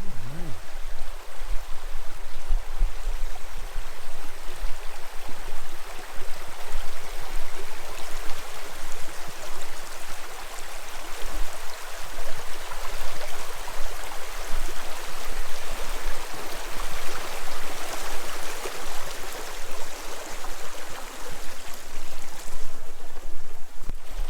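River water flowing, a steady rushing with a low rumble underneath.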